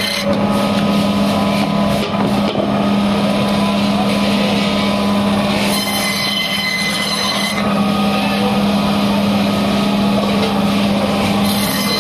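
Electric bone band saw running with a steady hum while its blade cuts through a mahseer fish, rasping through scales and flesh. For a second or two past the middle, a higher whine rises from the blade as it bites through the thick body.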